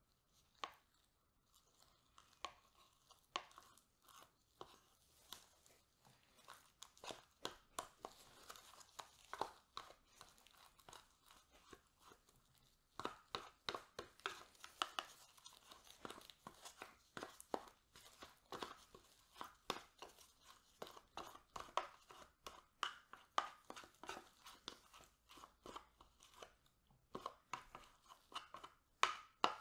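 White plastic spoon scraping and tapping inside a plastic Ehrmann Obstgarten yogurt cup, scooping out the cream cheese yogurt: a faint run of irregular clicks and scrapes that gets busier about halfway through.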